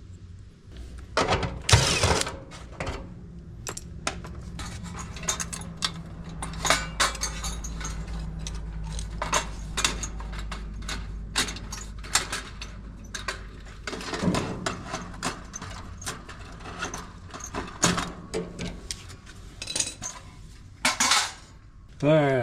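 Hand tools and small metal parts clinking, clicking and rattling during work on a clothes dryer, with a louder clatter about two seconds in and another near the end.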